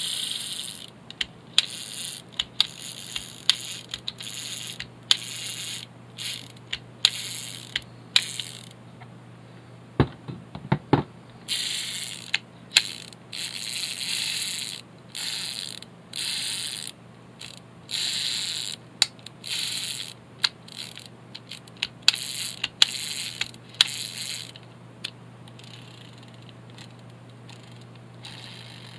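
Shimano Demi 120 fishing reel being worked by hand, its gears whirring and ratcheting in many short spins of the handle, with sharp clicks between them. The spins pause briefly about ten seconds in, where a few knocks sound, and they thin out near the end.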